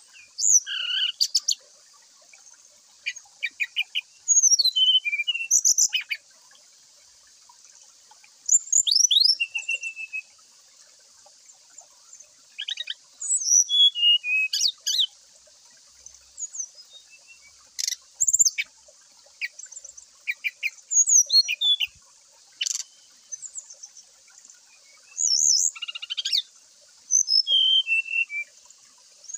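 Brown-chested jungle flycatcher (sikatan rimba dada coklat) singing in full voice: short phrases of clear whistled notes that fall in pitch, repeated every couple of seconds with pauses between, over a faint steady hiss.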